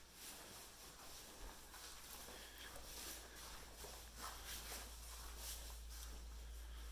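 Faint footsteps on a tile floor, soft and irregular, over a low steady hum.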